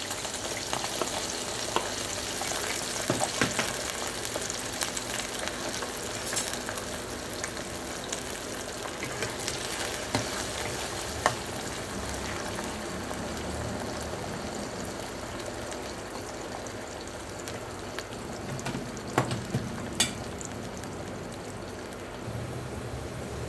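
Freshly added raw potato fingers deep-frying in hot oil in a kadhai: a steady sizzle. A few sharp clicks of a steel slotted spoon against the pan as they are stirred.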